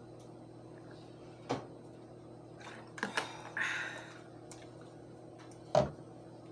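Plastic water bottle handled at a table: a few light knocks and a short rustle, then a sharp knock a little before the end as the bottle is set down. A steady low hum runs underneath.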